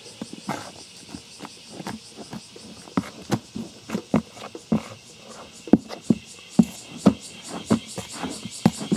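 A spoon digging and scraping through moist beetle-rearing soil in a breeding case, with irregular scrapes and soft knocks of varying strength, about two a second, as clumps are scooped and tipped aside.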